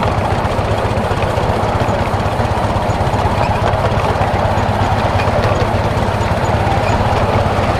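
7¼-inch gauge steam locomotive running along its track, heard close up from on board: a steady, unbroken running noise.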